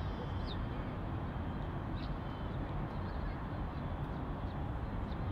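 Steady outdoor city ambience: an even low rumble, a faint thin high tone held throughout, and three or four short, faint high chirps scattered through it.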